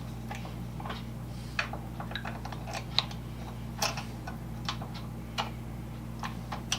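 Irregular small metal clicks and taps, about fifteen, as parts are handled and fitted together during assembly, over a steady low hum.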